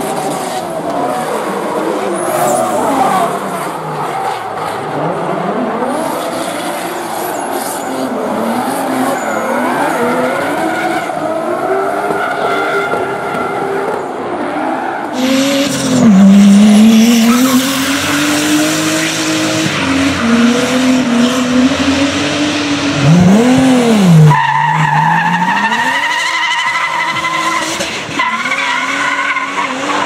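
Drift car engine revving hard, its pitch sweeping up and down with repeated throttle blips, while the tyres squeal and skid. About halfway through it gets louder as the car slides by with a burst of tyre noise and deep swoops in engine pitch.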